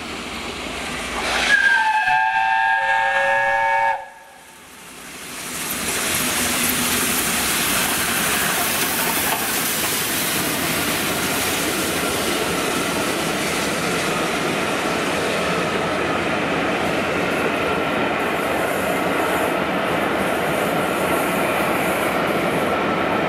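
The whistle of 60163 Tornado, an LNER Peppercorn A1 steam locomotive, blown once for about two seconds as it approaches, several notes sounding together. It cuts off suddenly, and after a short gap the loco and its coaches are heard passing close by in a steady, even rumble with a high hiss.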